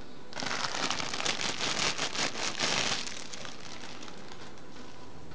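Clear plastic packaging crinkling as it is handled, for about two and a half seconds, then stopping.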